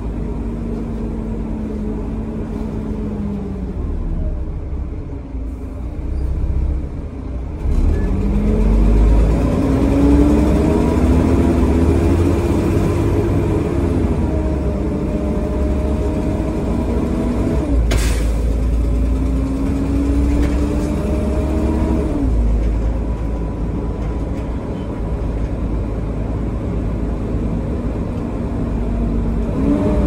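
Volvo B7TL double-decker bus's six-cylinder diesel with a blown exhaust, heard from the upper deck. It eases off, then accelerates through the gears of its ZF automatic gearbox, the engine note climbing and stepping down at each change, then runs steadily. A single sharp knock comes about halfway through.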